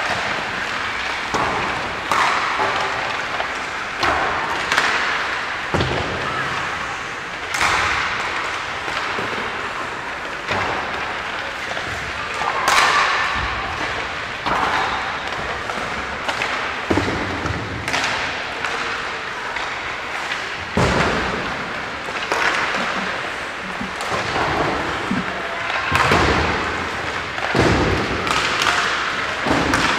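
Ice hockey warm-up shots: irregular sharp cracks and thuds of sticks hitting pucks and pucks striking the boards, goalie and net, every second or two, echoing in the indoor rink.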